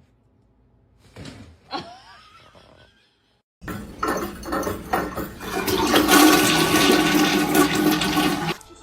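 Loud rush of water, the sound of a toilet flushing. It starts abruptly a few seconds in, runs for about five seconds and cuts off suddenly.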